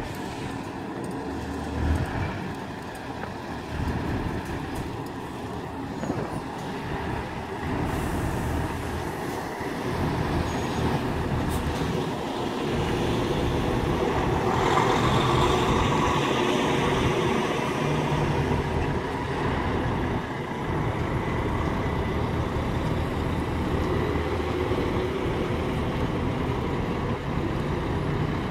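Heavy diesel truck tractor units (a DAF XF, a Volvo FH and Scanias) pulling away one after another in a convoy, their engines running steadily. The sound grows louder about halfway through as one truck passes close.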